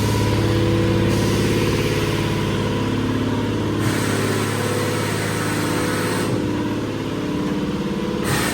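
A motor vehicle engine idling steadily, with a hiss rising over it for about two seconds midway.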